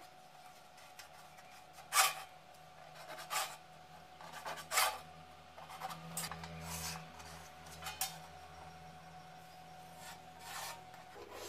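A pointed scriber scratching marking lines on painted sheet steel, drawn along a steel ruler: a handful of short scrapes, the sharpest about two seconds in, over a faint steady hum.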